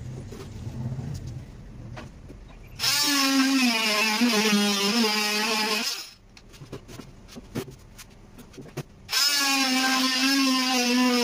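Handheld electric power tool working a plywood sheet: it runs in two spells of about three seconds, starting about three seconds in and again about nine seconds in, its whine wavering in pitch under load. Light knocks and handling sounds fill the gaps between.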